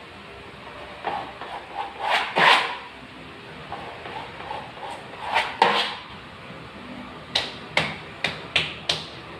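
Wallpaper being smoothed and pressed onto a wall by hand: two longer rustling swipes, then five quick short strokes near the end.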